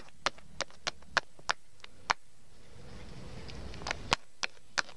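Irregular sharp clicks and taps of plastic toy figures being handled and set down on a tile floor close to the microphone, about three a second at first. A low rumble of handling noise comes midway, then a few more taps.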